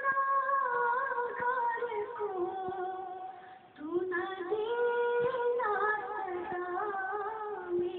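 A woman singing a naat, a devotional hymn, unaccompanied, in long held notes that slide from pitch to pitch, with a short breath pause a little before halfway. The sound is thin and muffled, heard through a television's speaker.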